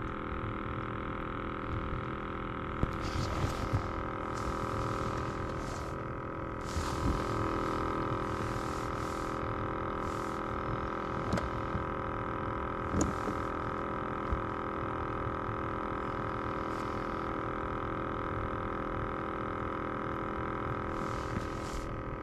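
Minn Kota Endura 30 lb-thrust electric trolling motor running at steady speed, a constant whine made of several unchanging tones. A few short hissy bursts come and go over it.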